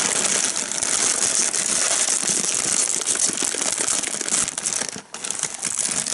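Metallised foil snack bag crinkling and rustling continuously as it is handled and opened, with a brief lull about five seconds in.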